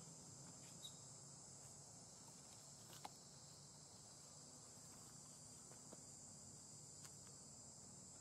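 Faint, steady high-pitched insect chorus, with a few faint clicks, the clearest about three seconds in.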